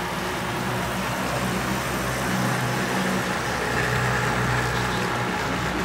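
Model diesel locomotives running past close by: a steady engine drone with rolling noise from the train, swelling slightly as the locomotives go by.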